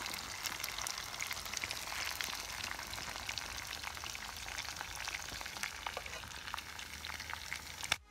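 Fish frying in hot oil in a pot over a wood fire: a steady sizzle with many small crackling pops. It cuts off suddenly near the end.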